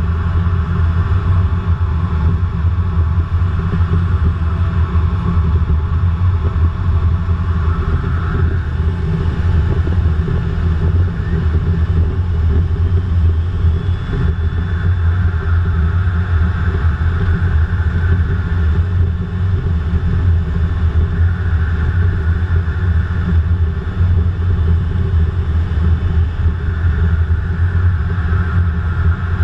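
Steady loud rumble inside the cockpit of a Eurofighter Typhoon in low-level flight: jet engine and airflow noise.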